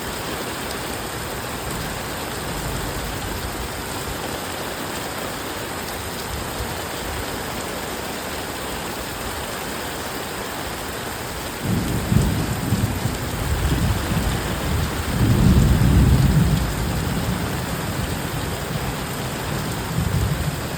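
Heavy rain falling in a steady hiss. A little past halfway, low rumbles of thunder roll in, loudest a few seconds later and then carrying on more softly under the rain.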